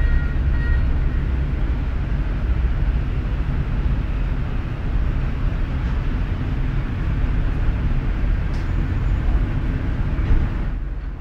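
City garage ambience: a steady low rumble of vehicle and engine noise with a faint high squeal dying away about a second in, the whole fading out at the very end.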